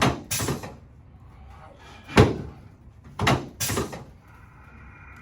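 Chiropractic drop table's section dropping with sharp clunks under the adjuster's thrusts on the lower back, three knocks in a few seconds, two of them followed at once by a short hissing rattle.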